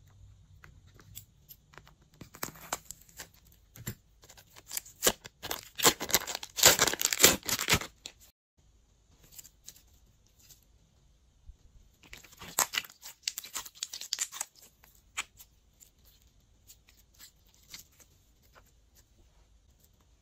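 Glossy slime being squished and stretched by hand, giving sticky crackling and clicking sounds in two bouts, the first longer and louder, the second shorter, starting about halfway through.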